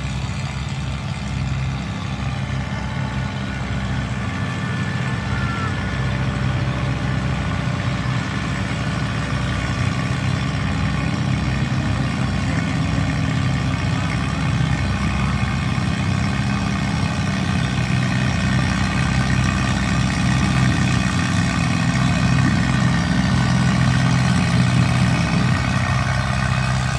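Allis-Chalmers CA tractor's four-cylinder engine running steadily under load as it drags a weight-transfer pulling sled, growing gradually louder as it comes closer.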